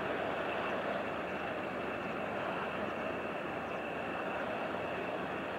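Steady running drone of a passing inland motor cargo barge, its engine mixed with the wash of water along the hull.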